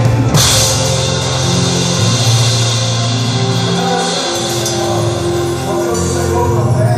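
Drum kit cymbal crashed once just after the start and left ringing, over a band's sustained held chord; no further drumming follows, as at the close of a song.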